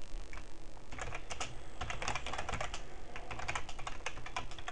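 Typing on a computer keyboard: a fast, irregular run of keystrokes.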